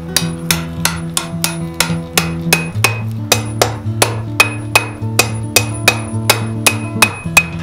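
Blacksmith's hammer striking steel on an anvil in a steady rhythm of about four blows a second, some blows leaving a short metallic ring, while forging a fire poker. Background music with changing chords plays underneath.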